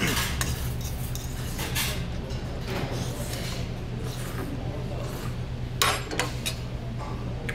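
Noodles and rice cakes being slurped and chewed, with a fork clinking and scraping on a small metal plate; the loudest of several short sounds comes just before six seconds in. A steady low hum runs underneath.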